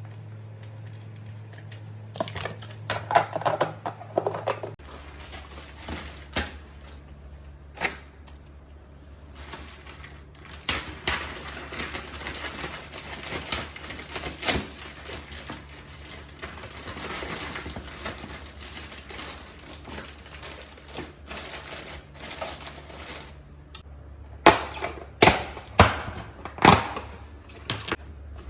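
Kitchen handling sounds: a string of irregular clicks, knocks and rustles from containers and utensils being handled, ending in four loud knocks in quick succession, all over a low steady hum.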